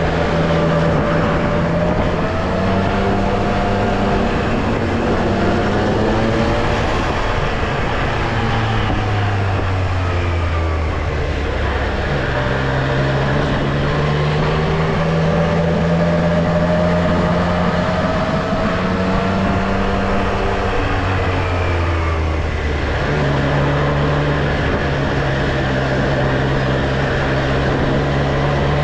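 Triumph Street Triple R's inline three-cylinder engine running under way. Its note holds steady, drops around ten seconds in, and steps back up about twenty-two seconds in.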